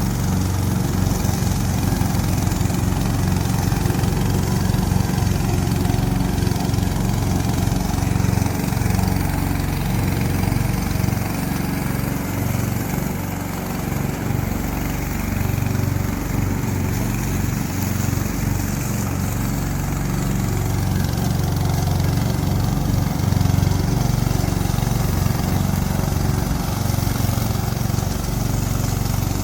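Gasoline engine of a remote-control lawn mower running steadily.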